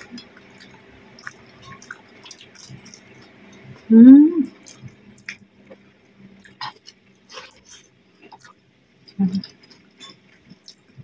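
Close-up eating sounds of a person eating with her fingers: small wet chewing clicks and lip smacks. About four seconds in, a loud short hummed 'mm' rises and falls in pitch, and a shorter vocal sound follows about nine seconds in.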